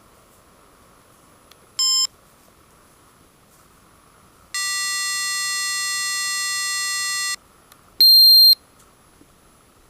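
Electronic beeps: a short beep, then a buzzing tone held for nearly three seconds, then a short, higher-pitched beep.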